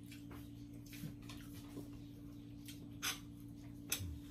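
Quiet mealtime sounds: a few light clicks and taps of tableware, two sharper ones about three and four seconds in, over a steady low hum.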